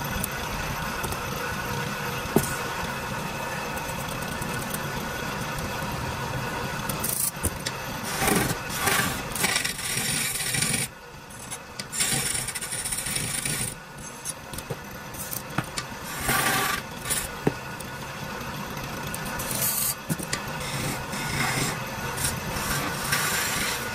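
Wood lathe spinning a wooden stair baluster while a hand turning chisel cuts into it, giving a scraping, rasping cutting sound over the lathe's steady hum. From about a third of the way in, the cutting comes in louder bursts as the tool bites, with brief pauses.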